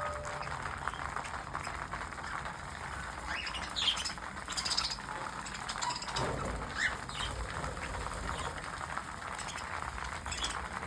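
Small pet parrots chirping and chattering in short scattered calls over a steady background noise, with a few louder calls about four to five seconds in and a short rising call near seven seconds.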